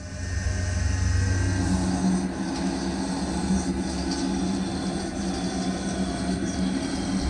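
Tormach Slant Pro CNC lathe turning a steel spindle under flood coolant: the spindle runs with a steady hum while coolant spray hisses over the part.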